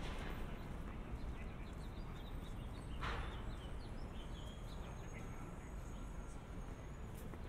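City street ambience: a steady low rumble with small birds chirping for the first few seconds. One short, louder noise stands out about three seconds in.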